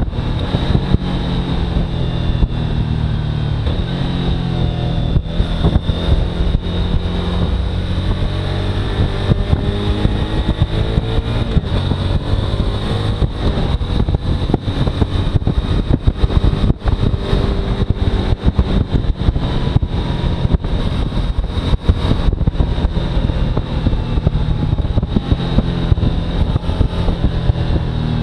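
Motorcycle engine running under way, its pitch rising and falling with the revs, over a steady rush of wind, with a thin steady high whine on top.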